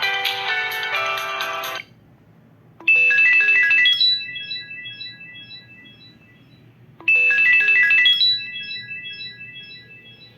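Preloaded ringtones of a Samsung GT-I5500L phone. A busy electronic melody cuts off about two seconds in, then after a short pause a different short ringtone plays twice, each time a quick run of bright notes that trails off in repeated, fading notes.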